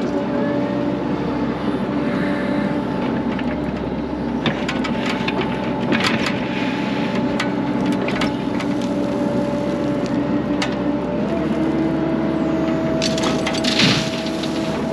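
A construction machine's engine and hydraulics running steadily under load, with crunching cracks and knocks of material being scooped and loaded into a dump trailer; one pitch steps up about eleven seconds in, and the loudest knock comes near the end.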